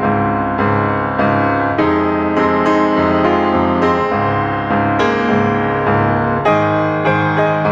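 Background piano music: sustained keyboard chords with new notes struck every half second to a second.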